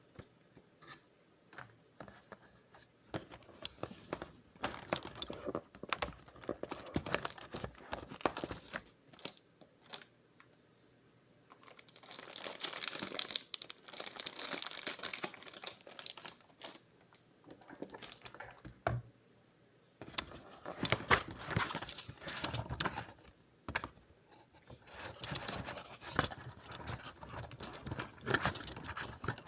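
Packaging being handled: plastic and paper wrapping crinkling and tearing, with small taps and clicks, in several bursts separated by short pauses. The longest, densest rustle comes a little under halfway through.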